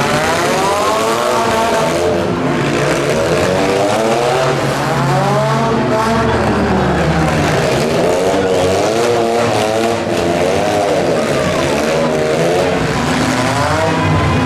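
Several compact demolition-derby cars' engines revving up and down at once, overlapping and rising and falling in pitch as the cars accelerate and maneuver, over a steady haze of tire and crowd noise.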